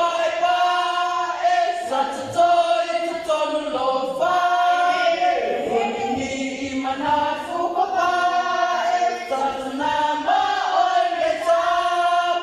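A group of voices singing together, holding long notes that change pitch about every second.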